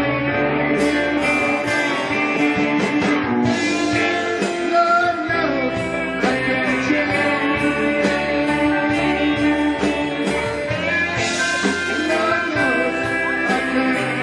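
Live band playing a reggae arrangement of a rock song, with electric guitars and a man singing into a microphone.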